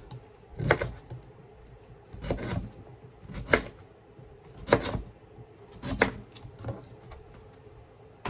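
Small kitchen knife cutting sweet potatoes: about six sharp cuts, spaced a second or so apart.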